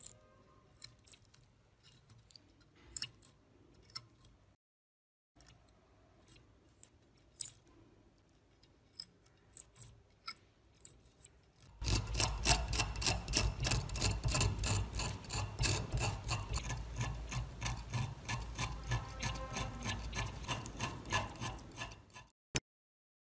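A curved metal pick and then a flat screwdriver scraping and picking flaking rust off the jaw of a rusty adjustable wrench. For the first dozen seconds there are scattered short scratches and clicks. Then come about ten seconds of continuous rapid scraping strokes, which stop abruptly shortly before the end.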